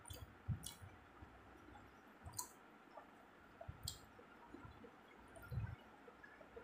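Faint eating sounds of rice and boiled egg being eaten by hand: soft chewing and mouth noises, with about five short sharp clicks and a few soft low thumps.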